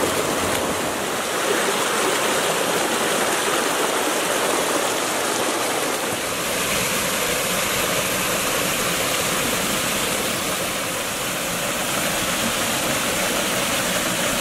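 Mountain stream cascading over boulders: a steady rush of water, its tone shifting slightly about six seconds in.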